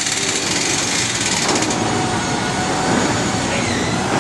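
Steady mechanical running noise from machinery, with a fast even rattle during the first second and a half.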